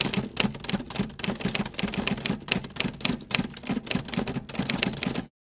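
Typing sound effect of rapid, irregular key clicks, several a second, that stops abruptly about five seconds in.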